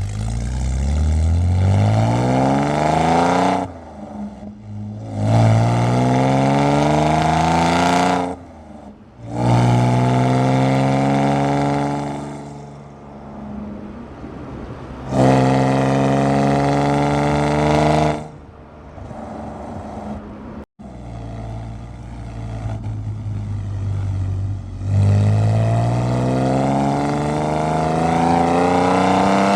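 BMW E46 exhaust recorded right at the tailpipe, very loud. The engine note climbs in several pulls, each ending in a sudden drop in pitch and level, with lower, quieter running between about eighteen and twenty-five seconds in.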